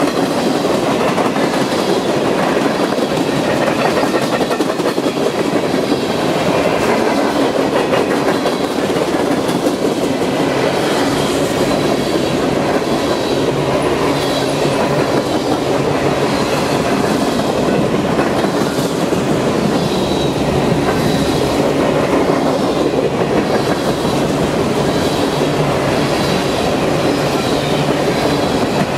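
Freight train cars rolling past at close range: steady wheel and rail noise with a clickety-clack rhythm over the rail joints. Faint high wheel squeals come and go.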